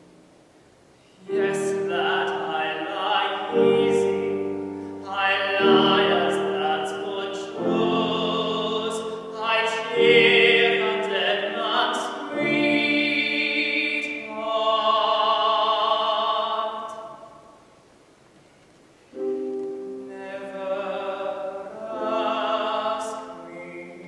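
Young tenor singing a classical art song in operatic style, with vibrato, to grand piano accompaniment. The voice comes in about a second in, breaks off for a second or two past the middle, then resumes.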